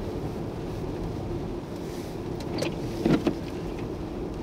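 Traffic on a snowy highway, snowplows among it: a steady engine and road rumble with a faint low hum, and a short louder noise about three seconds in.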